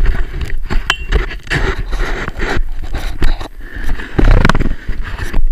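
A rider's edges scraping and skidding over packed snow, with a run of knocks and a heavy jolt about four seconds in as the rider goes down; wind and handling rumble on the camera microphone.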